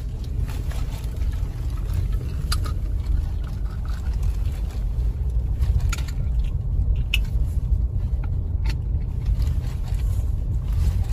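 Car interior while driving slowly over a rough dirt track: a steady low rumble of engine and tyres on the rutted surface, with a few sharp knocks and rattles as the car jolts over bumps.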